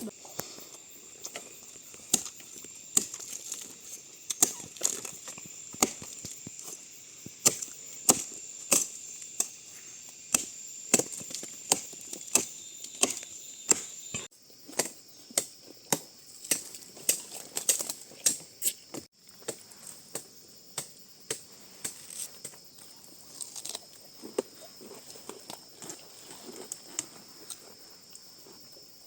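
Repeated chopping strikes, irregular, about one or two a second, over a steady high insect drone that drops in pitch about halfway through.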